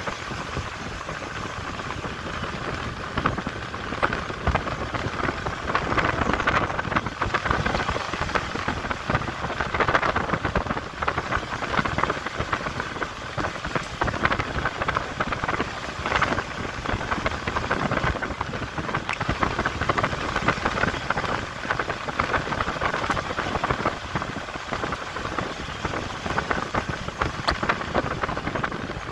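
Vehicle driving along a rough road: a steady rush of tyre and wind noise with a dense crackle.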